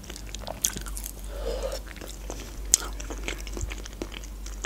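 Close-miked chewing of a mouthful of soft potato: small wet mouth clicks and smacks, with a short hummed 'mm' about a second and a half in.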